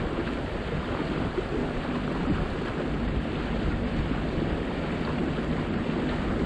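Steady noise of a motorboat under way: the boat running, water rushing past the hull and wind buffeting the microphone, without change.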